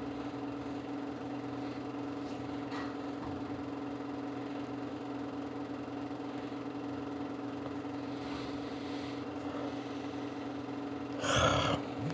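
Steady electrical hum with faint hiss. About eleven seconds in, a person takes one short, loud breath.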